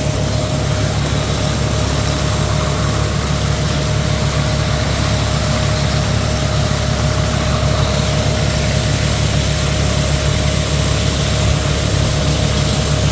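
Hasatsan H2200 hazelnut harvesting machine running steadily, a constant low engine hum with a thin steady whine over it.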